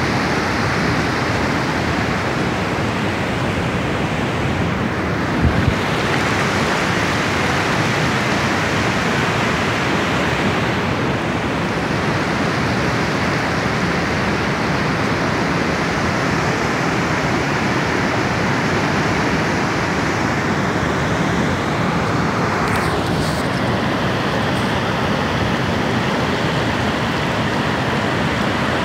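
Fast mountain river rushing over boulders: a loud, steady roar of white water. A brief low thump about five seconds in.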